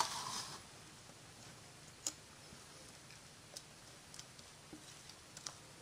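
A small wire whisk scraping thick batter out of a ceramic bowl into a metal loaf pan. A short scrape comes right at the start, followed by a few faint, scattered clicks and taps.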